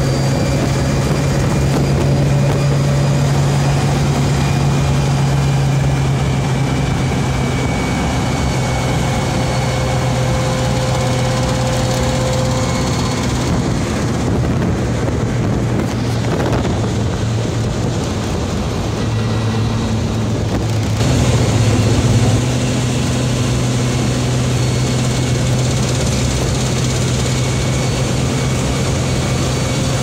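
An old car cruising at highway speed, heard from inside the cabin: a steady engine drone with road and wind noise.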